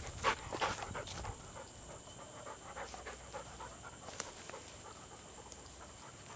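A dog panting in quick breaths, about three a second, that fade after the first second or so.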